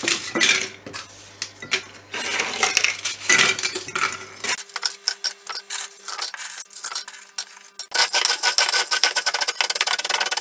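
Dry cinnamon biscuits snapped into pieces and dropped into a ceramic jug, with irregular cracks and clatters. After a quieter stretch, from about eight seconds in, the biscuits are crushed inside the jug with a wooden stick in rapid, even strokes.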